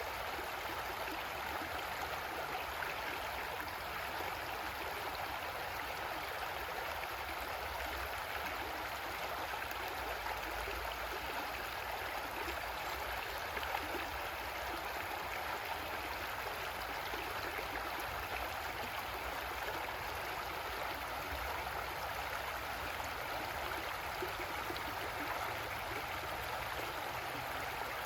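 Creek water flowing and gurgling over rocks, a steady rushing that doesn't change.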